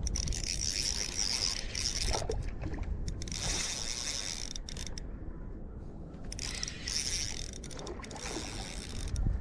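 Spinning reel being cranked to retrieve a jig, its gears and rotor making a steady whirring, ratcheting sound. The cranking stops for about a second and a half partway through, then starts again.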